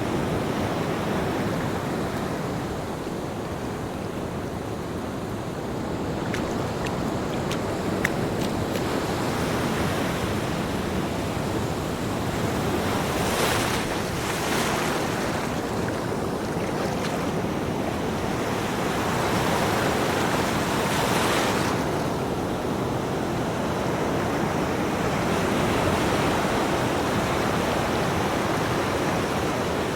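Ocean surf: a steady rush of breaking waves, with a few louder hissing washes a little under halfway through and again about two-thirds in.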